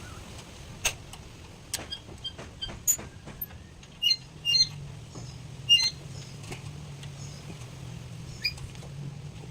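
Irregular light clicks and clinks of hard objects being handled, some with a short high ping, over a steady low hum.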